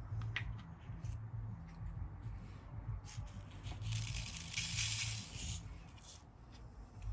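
Diamond painting at work: small light clicks of resin drills and the drill pen, with a rattling rustle of drills in the tray for about two and a half seconds in the middle.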